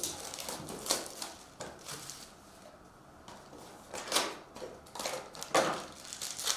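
A cardboard trading-card box being opened by hand and its stack of cards slid out and handled: dry scraping and rustling of card stock with a few sharp taps, loudest about four seconds in and again near the end.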